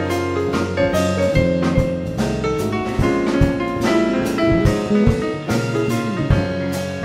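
Instrumental break of a jazzy pop song: a drum kit keeps a steady beat under piano or keyboard chords and a bass line.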